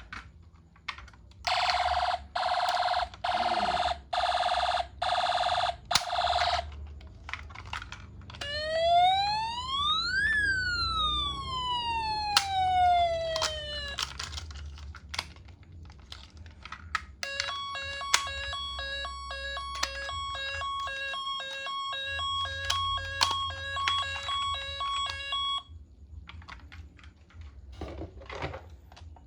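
Toy ambulance minicar's electronic siren sound effects through its small speaker: first a string of even on-off beeps, then one long wail that rises and falls, then a fast repeating electronic warble. A low rumble runs underneath.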